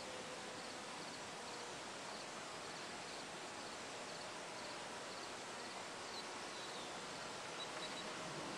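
Steady outdoor background hiss with faint, regularly repeating high insect chirps.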